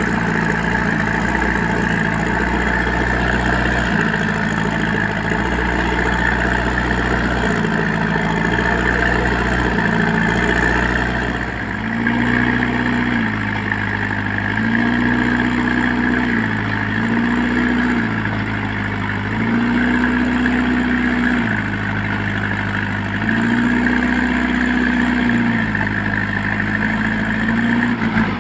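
JCB 3DX backhoe loader's diesel engine running while it works, its pitch dropping and recovering every one to three seconds.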